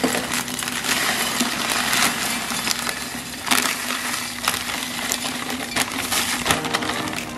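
Dry crumbly food poured from a plastic bag into a tall glass canister: a steady rattle and patter of small pieces hitting the glass and each other, with the plastic bag crinkling.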